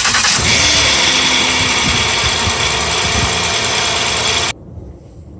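A car engine starting and running loudly, cut off suddenly about four and a half seconds in.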